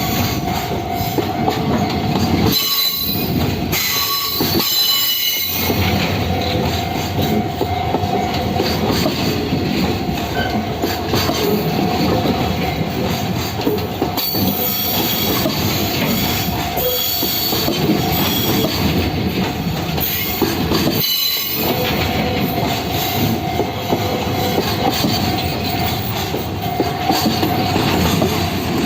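Freight train rolling steadily past at close range, with a high wheel squeal and a clatter of wheels over the rail joints throughout.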